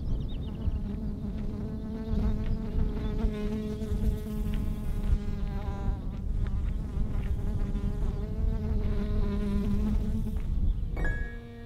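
A flying insect buzzing close to the microphone, its pitch wavering slightly, over low wind rumble. It stops near the end as music comes in.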